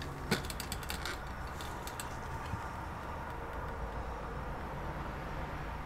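Handling noise as the bare cable-modem circuit board is picked up off a silicone repair mat: a sharp knock about a third of a second in, then a quick run of small clicks and taps over the next second, with a few more around two seconds in.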